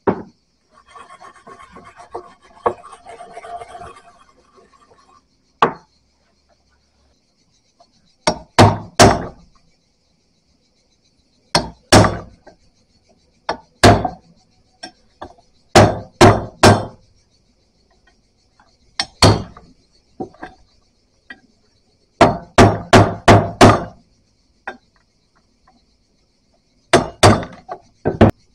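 Sharp knocks of a tool striking hard, in short groups of one to six blows with pauses of a few seconds between groups. A softer rubbing or scraping sound comes in the first few seconds.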